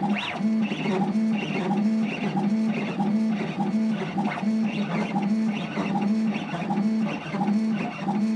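Stepper motors of a DIY CNC machine whining as they drive a drag-engraving needle over acrylic. The motors start and stop in short moves about twice a second as the tip traces a line drawing.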